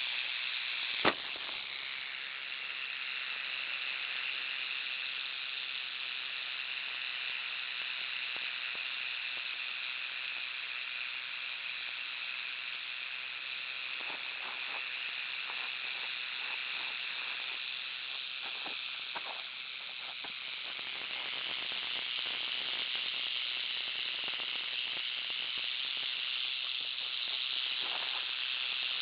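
Arizona black rattlesnake (Crotalus cerberus) rattling: a steady high buzz, the snake's warning, that dips briefly past the middle and grows louder near the end. A single sharp click about a second in.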